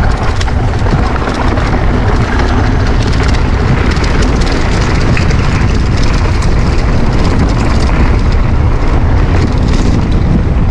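Loud, steady wind buffeting on a moving action camera's microphone, with mountain bike tyres rolling over a dirt trail.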